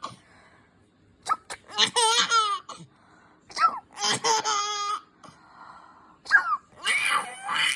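A baby laughing in three high-pitched bouts of about a second each. Each bout follows a short, sharp mock sneeze from an adult.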